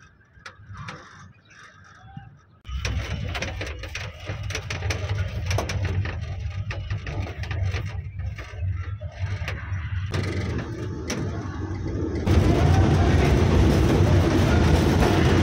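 Ropeway machinery running: a steady low rumble with clattering clicks. It starts about three seconds in and grows louder in two steps near the end.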